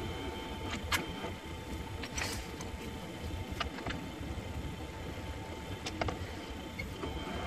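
Mini lathe running with a steady motor hum and a thin whine, a twist drill in the tailstock drill chuck sitting in the spinning workpiece. Four or five sharp metallic clicks, a second or so apart, come as a wrench is worked onto the drill chuck.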